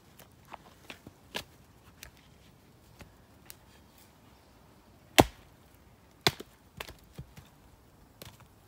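Axe striking a log to split firewood: one sharp, loud chop about five seconds in, a second chop about a second later, and a few lighter knocks in between and after.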